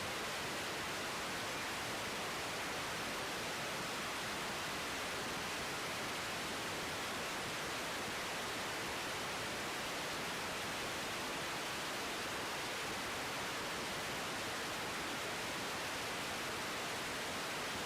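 Steady hiss of radio static from an air traffic control receiver between transmissions, even and unchanging.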